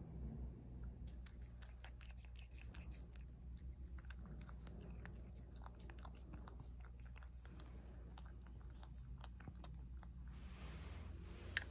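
A cat slowly chewing a single piece of dry kibble: faint, irregular crunching clicks, with one sharper click near the end.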